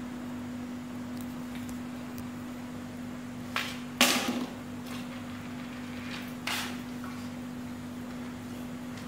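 A German Shepherd puppy knocking a bowl and plastic stool about on a marble floor: two sharp knocks about three and a half and four seconds in, the second the loudest with a brief clatter after it, and a lighter knock about six and a half seconds in, over a steady low hum.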